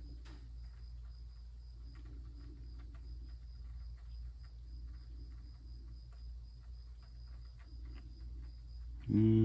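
Quiet room tone: a steady low electrical hum and a thin, steady high-pitched whine, with faint scattered small ticks.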